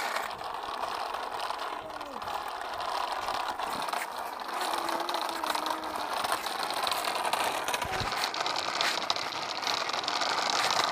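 Electric motor and plastic gears of a radio-controlled toy car running, a steady whirring with rattling clicks.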